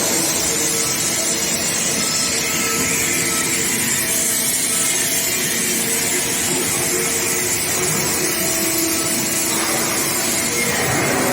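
Induction quenching and tempering line for oil casing running: a steady loud hiss of machine noise with faint steady hums under it.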